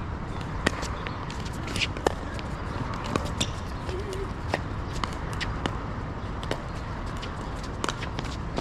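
Pickleball paddles hitting the plastic ball and the ball bouncing on the court: about a dozen sharp pops at irregular intervals over a steady low background noise.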